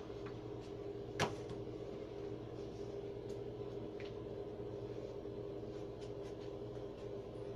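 Steady background hum holding one fixed tone, with a single sharp click about a second in and a few faint ticks.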